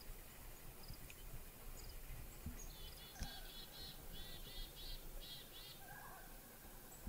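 Faint bird calls: a run of short high chirping notes in quick repeated clusters lasting about three seconds, with a single soft knock just as they begin.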